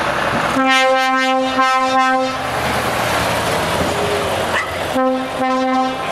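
Truck air horn sounding one steady note: a longer blast followed by two short ones, then two more blasts about three seconds later, over the running of passing truck engines.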